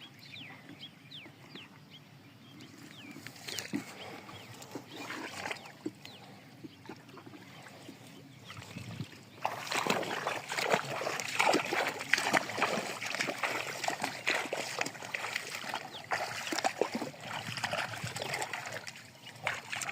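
Water splashing and sloshing, light and scattered at first, then busier and louder from about halfway through.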